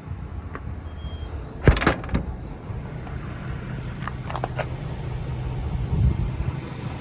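A sharp clunk about a second and a half in, then a few lighter clicks and taps, over a steady low hum.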